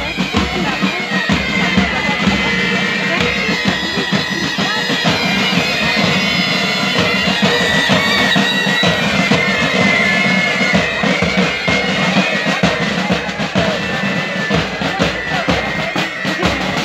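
A pipe band playing Highland bagpipes, the melody carried over a steady drone, with drums beating a marching rhythm.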